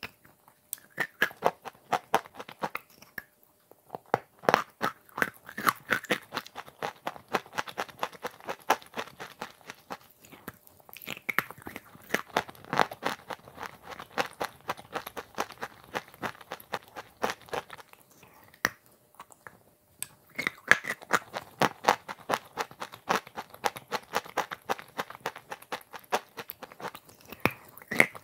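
Close-up crunching and chewing of chalk coated in brown paste and chocolate, taken in big bites: dense crisp crackles with a few short pauses between mouthfuls.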